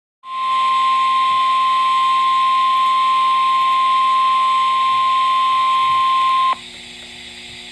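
NOAA Weather Radio warning alarm tone: a single steady tone at about 1050 Hz over radio hiss, held for about six seconds and then cutting off suddenly, leaving only the hiss. It is the alert signal that comes before a National Weather Service warning broadcast.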